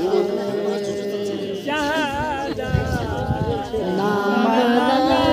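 Singing: a voice holding long, wavering notes in a slow, unhurried melody, with no clear beat behind it.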